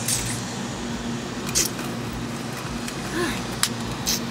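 Steady hum of an idling car, heard from inside the cabin, with a few short slurps through a drinking straw: one at the start, one about a second and a half in, and a couple near the end.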